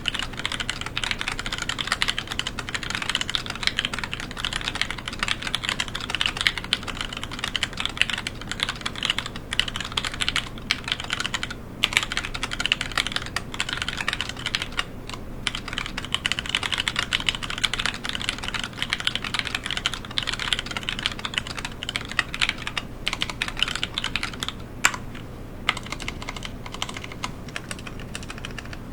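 Steady, fast typing on a Discipline65 mechanical keyboard with factory-lubed NK Silk Black linear switches on a POM plate, PBT keycaps and a cracked acrylic case: a dense run of key clacks with a few brief pauses.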